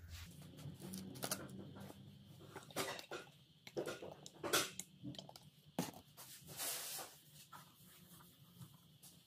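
Paper shop towel rustling and rubbing on the cylinder walls of a bare Ford 4.6 4V engine block as they are wiped with automatic transmission fluid, with scattered light clicks and knocks of handling; the longest rubbing comes a little before the end.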